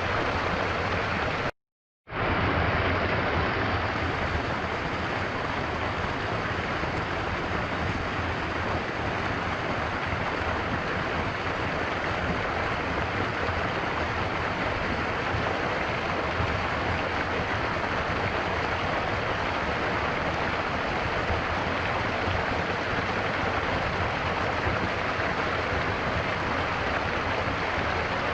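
Stream flowing, a steady even rush of water. It cuts out completely for about half a second, a second and a half in, then resumes.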